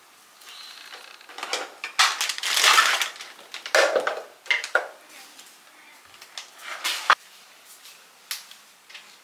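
Stacked ceramic bowls, plates and a mug clinking and clattering as they are handled and set down on a floor, with irregular knocks and scraping. The sharpest knock comes about seven seconds in.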